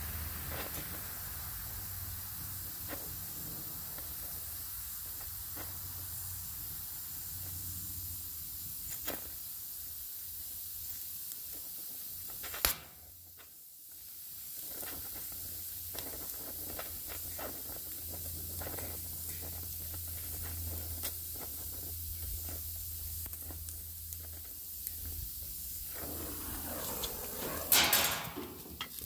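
Gas welding torch flame burning with a steady hiss while a filler rod is fed into a weld on sheet metal. The hiss drops out briefly about halfway, and near the end there are a few louder knocks and rustles.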